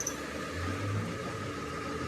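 Machine running steadily with a low hum that comes in about half a second in, over a steady hiss and a faint high whine.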